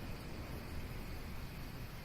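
Steady nature ambience: an even, hiss-like noise, heaviest in the low end, with no separate calls, knocks or other events.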